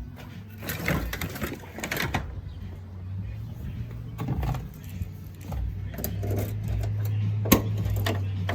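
An engine starts and runs with a steady low hum, getting louder about six seconds in, with scattered clicks and knocks and one sharp knock near the end.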